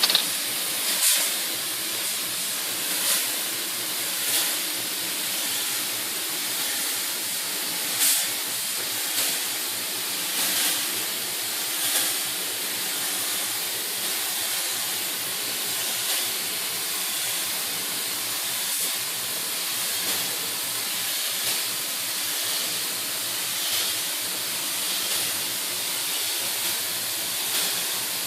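Compressed-air paint spray gun spraying in a steady high hiss, swelling briefly every second or two.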